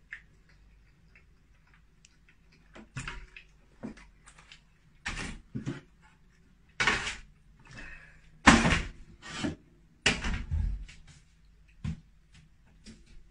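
Kitchen clatter: a series of sudden knocks and bangs, starting about three seconds in and louder around the middle.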